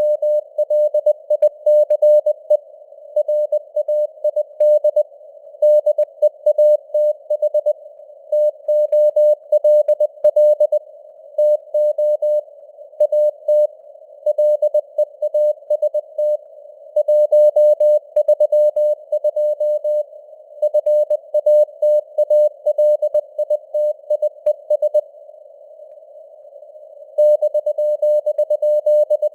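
Morse code (CW) keyed at 20 words per minute as a single mid-pitched tone in dots and dashes, over simulated radio static with the signal strength fading up and down (QSB). The keying pauses for about two seconds near the end, leaving only the hiss, then starts again.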